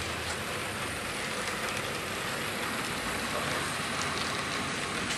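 Model freight train rolling past on the layout track: a steady whir of metal wheels on the rails and the locomotives' motors, with a few faint clicks.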